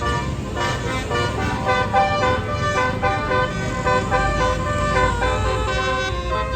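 Tour bus's basuri telolet multi-tone horn playing a tune, its notes stepping quickly from one pitch to the next, over the low running of the bus's diesel engine, which grows louder about four seconds in.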